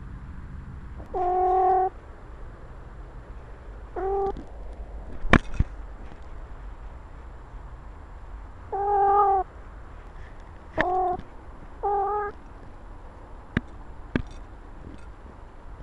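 Egyptian Mau cat meowing five times, close up from a camera on its own collar: short calls held at an even pitch. Between them come a few sharp knocks, the loudest about five seconds in.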